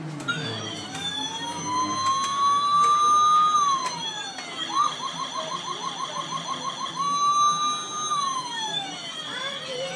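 Electronic siren sound effect from a battery-powered toy ride-on motorcycle. A slow wail rises and then falls. About five seconds in it switches to a fast yelp of roughly seven warbles a second, then goes back to the slow wail and begins to yelp again near the end.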